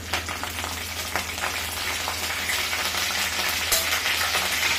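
Curry leaves sizzling in hot mustard oil in a steel kadhai, with mustard seeds crackling and popping. The sizzle grows steadily louder, with one sharp pop a little before the end.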